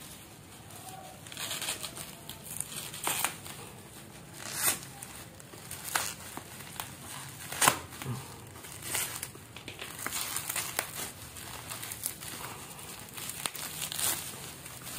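Plastic bubble wrap crinkling and rustling as hands pull it open and unwrap a parcel, with irregular sharp crackles. The loudest crackle comes a little before eight seconds in.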